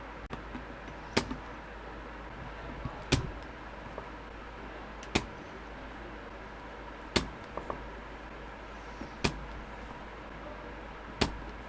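Micro switch of a Logitech G603 mouse's left button clicking: six sharp clicks, one about every two seconds, with a few faint ticks between them.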